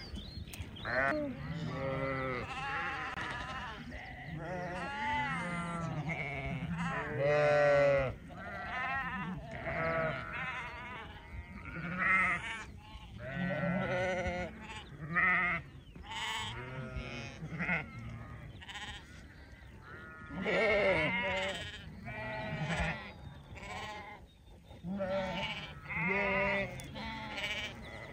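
A flock of sheep bleating: quavering calls one after another, some overlapping, high and low voices mixed.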